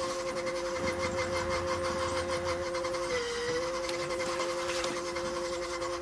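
Electric motor of a homemade PVC-pipe cup washing machine running with a steady hum, its pitch dipping briefly about three seconds in.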